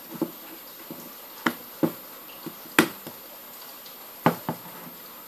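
Irregular sharp clicks and light taps, about six in all, the loudest a little under three seconds in: handling noise from hands working a smartphone with a thin metal pin.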